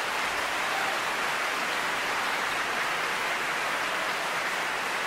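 Large theatre audience applauding an aria: dense, steady clapping.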